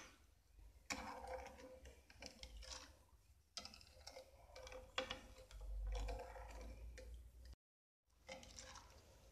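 Metal slotted spoon stirring granulated tapioca and water in a glass bowl: faint irregular clinks and scrapes against the glass, with soft sloshing of the liquid.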